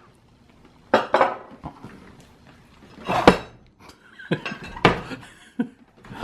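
Dishes and cutlery clinking and knocking at a meal table, in a few separate bursts.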